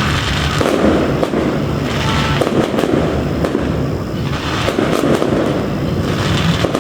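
Aerial fireworks bursting continuously, with many overlapping bangs and crackles and no pause.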